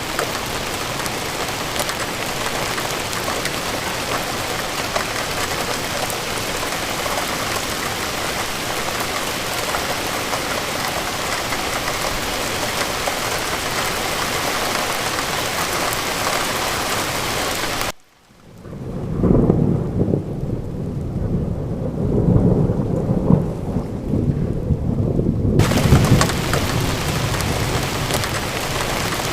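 Steady rainfall ambience with thunder. About 18 seconds in the rain cuts off abruptly and a deep rolling thunder rumble takes over for several seconds, then the rain comes back.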